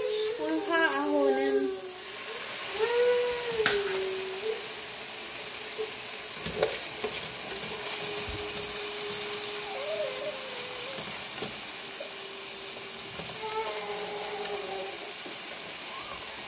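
Dry popcorn kernels being stirred with a spatula in a hot nonstick frying pan without oil, the kernels rattling and scraping over the pan under a steady sizzling hiss, with a couple of sharp knocks of the spatula on the pan.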